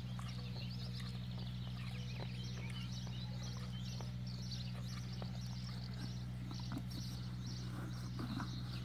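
A horse nosing into and eating from a plastic feed bucket, with scattered soft clicks and knocks, over a steady low hum and birds chirping.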